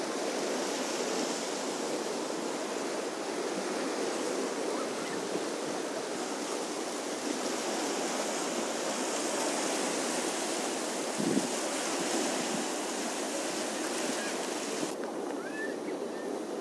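Sea waves washing on a rocky shore: a steady rushing hiss, with a brief thump about eleven seconds in. The sound turns duller near the end.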